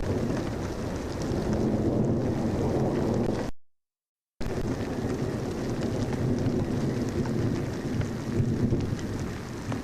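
Steady rain with wind buffeting the microphone, a low rumbling noise carrying a scatter of faint drop ticks. The sound cuts out completely for just under a second near the middle, then resumes.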